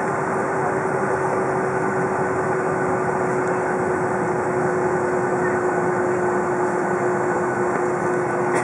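Jet engines of a taxiing CRJ regional jet, its rear-mounted GE CF34 turbofans running at taxi power: a steady roar with one constant low drone through it.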